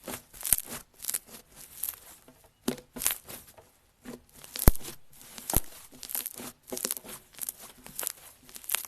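Slime being squished and stretched, making irregular sticky crackles and pops, several a second, with the loudest pop about halfway through.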